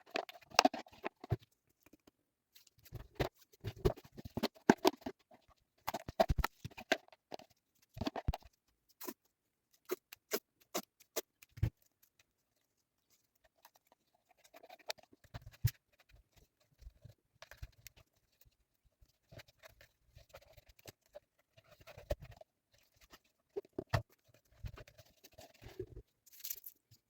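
Irregular clicks, taps and light scraping of small objects being handled and worked by hand, in clusters with short pauses between.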